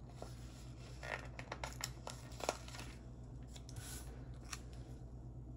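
A clear plastic sticker being peeled off its backing sheet by fingernails: faint crinkling with a few small clicks, the sharpest about two and a half seconds in, and a brief peeling hiss near four seconds.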